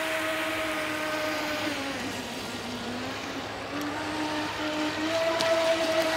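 Modified Tear-Into RC jet boat's water-cooled brushless inrunner motor and jet drive whining at speed over a hiss of water. The pitch drops about two seconds in and climbs again toward the end as the throttle comes back up.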